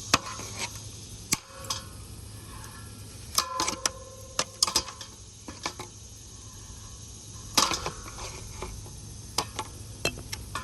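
Hampton Bay ceiling fan running with a steady low hum, over which come irregular sharp metallic clicks and clanks, a few of them ringing briefly.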